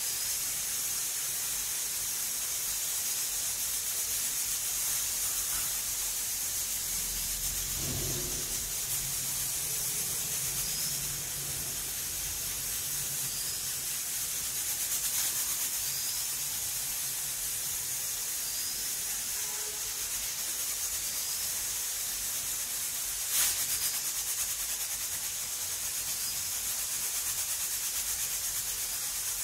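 Stovetop pressure cooker on a gas flame, hissing steadily as steam escapes around its whistle weight. A brief low rumble comes about eight seconds in, and a single sharp click comes near the end.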